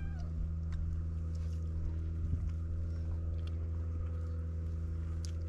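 Steady low mechanical hum, with a few faint clicks now and then.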